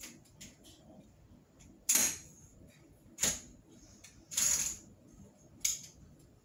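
A crutch being handled and adjusted: four sharp clicks about a second apart, with a few fainter ticks in the first second.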